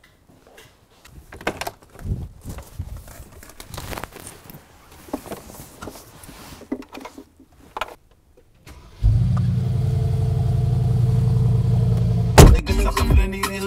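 Footsteps, handling and a car door opening, then about nine seconds in the twin-turbo V8 of a Mercedes G-Class starts abruptly and settles into a loud, steady idle. A sharp thump near the end.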